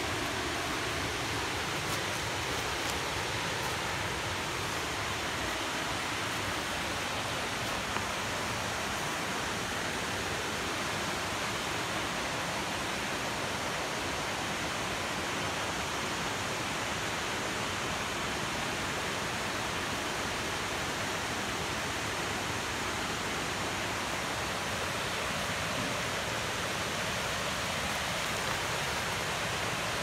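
Steady, unbroken rush of water from a rocky mountain stream and waterfall.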